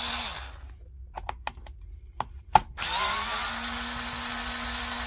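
Cordless drill-driver with a T10 Torx bit backing out the case screws of a Makita 18V LXT battery: the motor winds down just after the start, a few sharp clicks follow, then it spins up and runs steadily again from about three seconds in.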